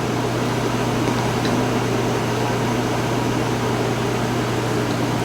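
Steady machine hum with an even rushing noise and a constant low drone, with no change or break.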